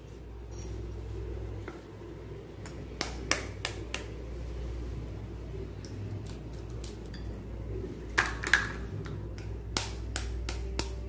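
Eggs tapped against a metal fork to crack their shells: a cluster of sharp taps about three seconds in and louder ones around eight seconds, over a low steady hum.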